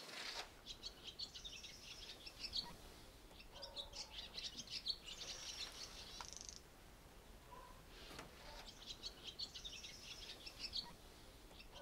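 Small birds chirping faintly: quick runs of high notes in three spells, with short gaps between them.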